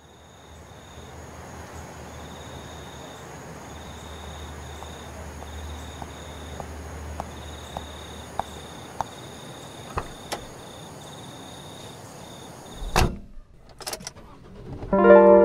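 An ambient sound bed fading in: a steady low hum and hiss with a high pulsing chirp of crickets, a run of about six evenly spaced clicks, then a sudden loud bang near the end, just before piano notes begin.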